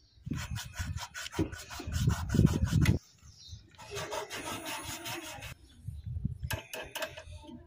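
A hand file rasping against the copper tubing at a refrigerator compressor, in rapid scraping strokes. It comes in three bouts: the longest and loudest runs through the first three seconds, then shorter ones come near the middle and near the end. The file is scoring the line to cut it open.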